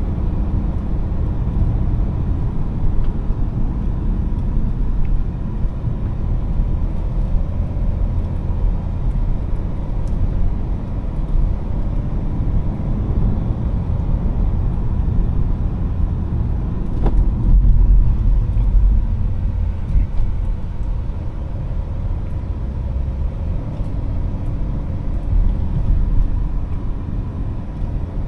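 BMW 335d's twin-turbo 3.0-litre straight-six diesel pulling the car along with tyre and road rumble, a deep steady drone that swells briefly about two-thirds of the way through.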